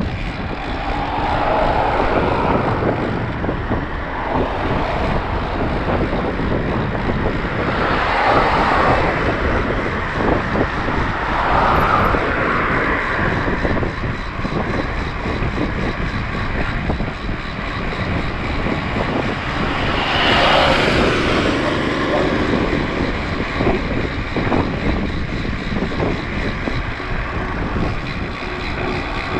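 Riding noise from a mountain bike on the move: a steady rush of wind on the action camera's microphone and rolling tyres, with four louder swells that rise and fade, near the start and about eight, twelve and twenty seconds in.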